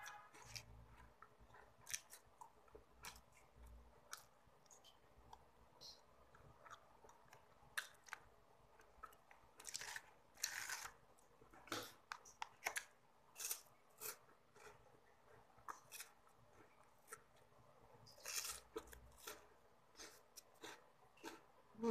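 A person chewing a crisp chocolate snack close to the microphone, with irregular soft crunches and mouth clicks; the crunching is louder for a moment about halfway through and again near the end.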